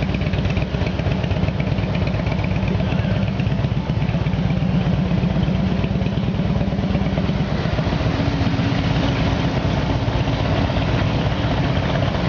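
Motorcycle engines idling with a steady, pulsing low rumble; a further steady note joins about two-thirds of the way in.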